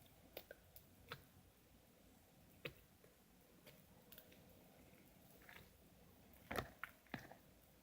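Faint, scattered clicks and small taps against near silence, with a few louder knocks about six and a half to seven seconds in.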